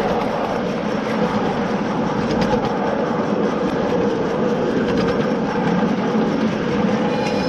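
Wheels of 7½-inch gauge riding-scale passenger cars rolling along the track: a steady rumble of wheels on rail, with a few faint clicks.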